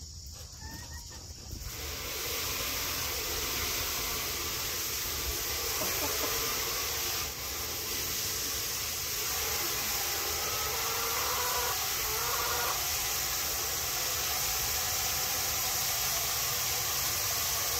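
Backyard chickens clucking and calling at feeding time, over a steady hiss that sets in about two seconds in.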